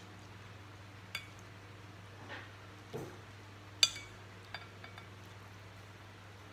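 Metal spoon and ladle clinking against ceramic bowls and a plate while serving broth: several separate clinks, the sharpest and ringing about four seconds in. A low steady hum runs underneath.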